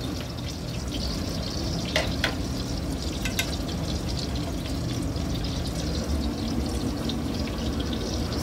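A metal spoon clicks a few times against a cast iron skillet of thick gravy as a spoonful is scooped out, over a steady hiss.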